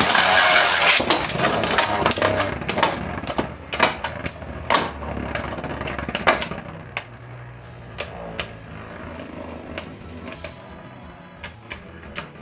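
Beyblade spinning tops battling in a plastic stadium: a whirring, scraping rush with many sharp clicks as the tops collide. It is loudest in the first two seconds and thins to scattered clicks over a quieter whir.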